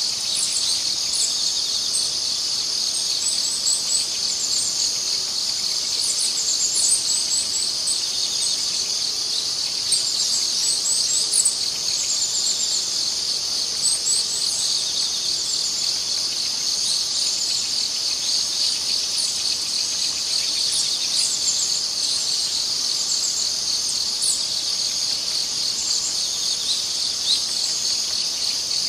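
Steady, dense high-pitched chorus of insects, crickets-like, with clusters of short higher chirps recurring every second or two over it.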